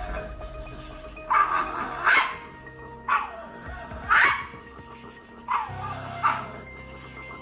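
Shiba Inu snarling and barking aggressively in three bursts, each building to a sharp bark; the dog is in attack mode.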